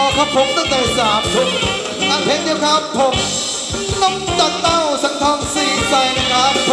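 Thai ramwong dance music from a live band: a steady drum beat under a melody line that slides up and down in pitch.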